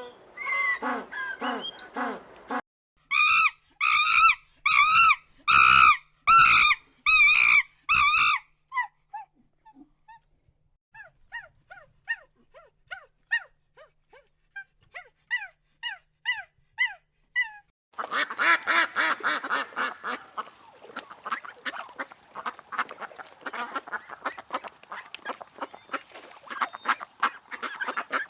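Domestic geese honking: about eight loud honks in a row, then a run of short, high, thin calls, and from about two-thirds of the way in a whole flock of geese or ducks calling over one another.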